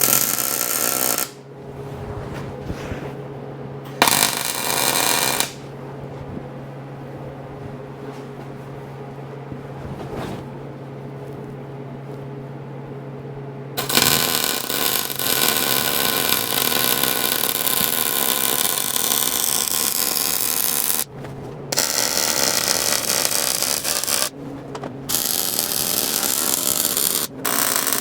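Electric arc welding on steel. A welder's steady hum is broken by two short arcs early on, then long runs of arc crackle from about halfway, with brief stops between beads.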